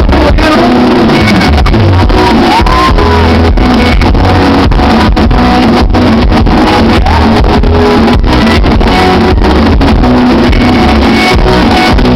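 Live sertanejo concert music recorded from the audience, loud and distorted, with singing, guitar and a steady drum beat.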